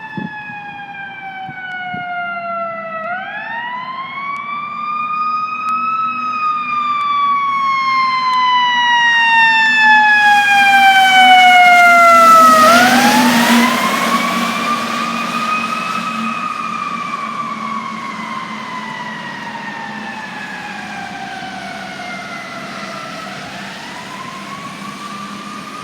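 Fire truck siren wailing: the tone rises over a few seconds, then falls slowly, about every ten seconds. It is loudest about halfway through, with a rushing noise, over a steady low hum.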